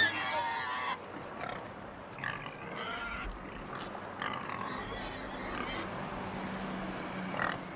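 A herd of pigs calling, with a loud, high squeal at the start and then shorter scattered calls every second or so.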